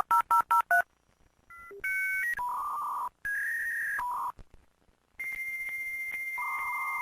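Dial-up modem connecting over a phone line: the last touch-tone digits are dialed in quick beeps, then after a short pause come a sequence of steady electronic tones and a long high answer tone with a second tone joining it, the start of the modem handshake.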